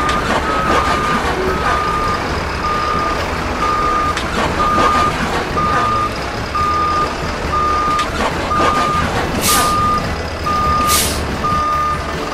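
A truck's reversing alarm beeping steadily, about one beep every 0.8 seconds, over a low diesel engine rumble as the truck backs up. Two short air hisses come near the end.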